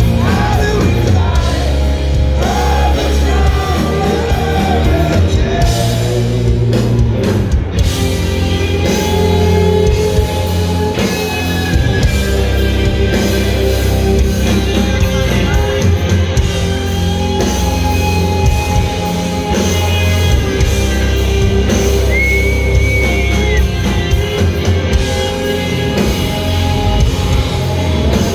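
Rock band playing loud with distorted electric guitars, bass and drums, and a singer's voice over them.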